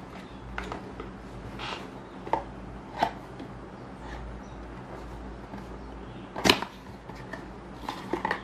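A small cardboard product carton handled by hand: scattered taps and rubs of fingers on the card, a sharper knock about six and a half seconds in, and a cluster of clicks near the end as its tuck flap is pulled open.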